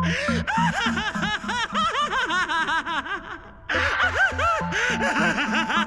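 A man's maniacal laughter, fast repeated cackles that break off about three seconds in and then start again, over a steady held tone.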